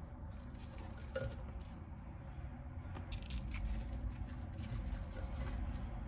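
Faint light clicks and scrapes of things being handled, over a low steady hum.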